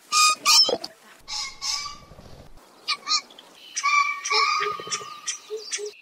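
Green pheasant calling: a series of short, loud, rasping calls, coming in quicker succession in the second half.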